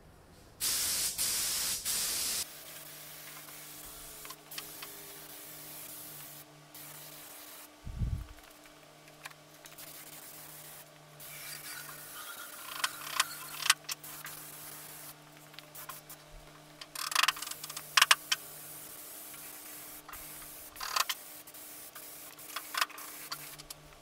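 Compressed-air paint spray gun hissing as the trigger is pulled: one long burst about a second in, then many short bursts. A faint steady low hum runs underneath, and there is a single low thump near the middle.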